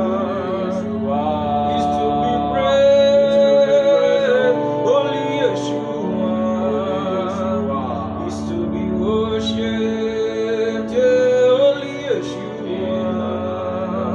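Gospel worship music: a voice singing long, sliding held notes over a steady sustained chord.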